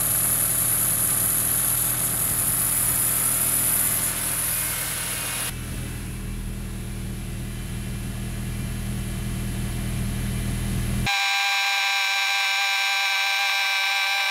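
Chevy LUV's four-cylinder engine idling steadily, with a high hiss over it that stops about five and a half seconds in. Near the end the sound turns thin and tinny, the low hum gone and a few steady high tones left.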